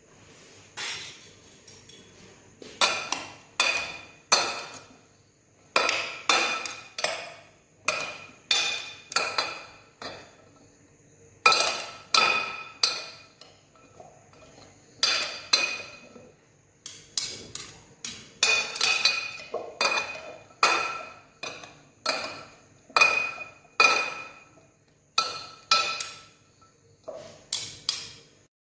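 Serving utensils clinking against a bowl as a salad is tossed: repeated sharp clinks that ring briefly, coming in quick clusters of two to four with short pauses between.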